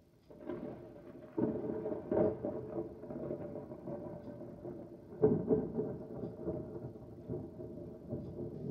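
Thunder rolling and rumbling close by, with two sharper peals, about a second and a half in and again about five seconds in, each trailing off into a long rumble.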